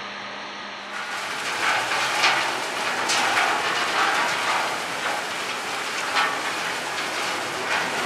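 A steady machine hum, then from about a second in a dense rattling hiss of wood chips being moved by a screw auger in a chip bunker, with irregular louder rattles.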